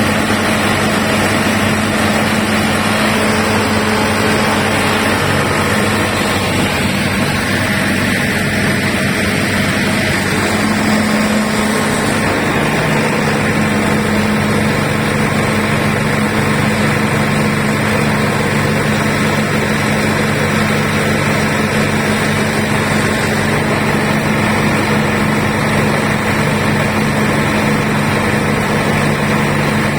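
Diesel generator engine running steadily, its note shifting slightly about twelve seconds in.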